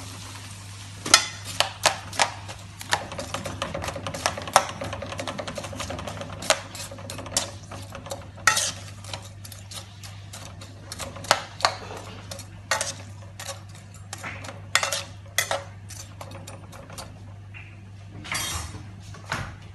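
A spatula stirring seafood and tomato sauce in a frying pan: irregular clacks and scrapes of the spatula against the pan over a sizzle from the cooking sauce.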